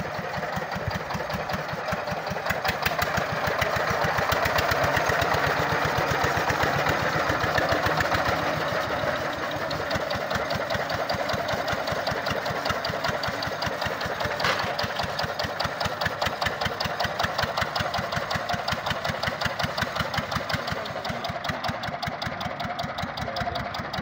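Small tractor's engine running with a fast, even beat as it pulls a disc plough through the soil. It grows louder about three seconds in and eases back after about nine seconds.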